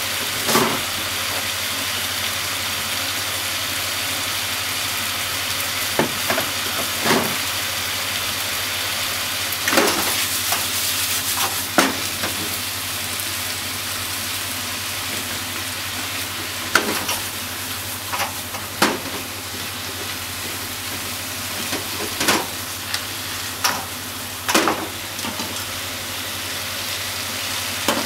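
Bean sprouts, carrot, green pepper and sliced pork sizzling in a frying pan as they are stir-fried with chopsticks: a steady frying hiss, broken by irregular clacks and scrapes of the chopsticks against the pan.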